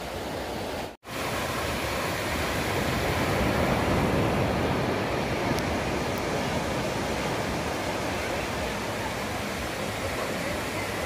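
Ocean surf breaking and washing up a sandy beach: a steady rushing wash that drops out for an instant about a second in.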